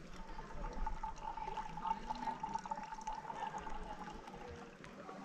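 A thin stream of liquid trickling into a mug while pour-over coffee brews. It makes a steady ringing note that fades out about four and a half seconds in.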